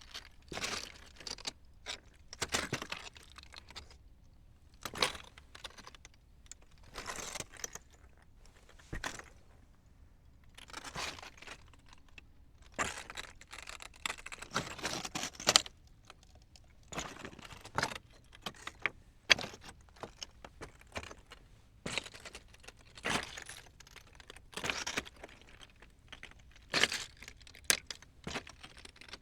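Footsteps on loose rocks, each step a crunching clatter of stones underfoot, at an uneven walking pace.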